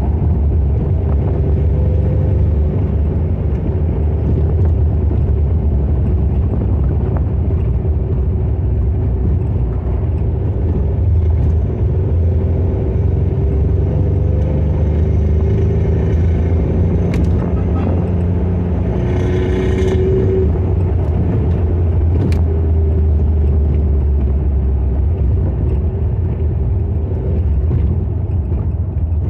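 Lamborghini Espada's V12 engine and road noise heard from inside the cabin while driving: a steady low rumble, with the engine note drifting slightly up and down. There are a few light clicks, and a brief higher rush about two-thirds of the way through.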